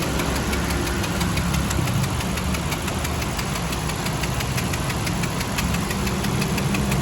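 Honda Civic engine running at a steady idle with a fast, even ticking over the engine note: the abnormal engine noise that is being diagnosed.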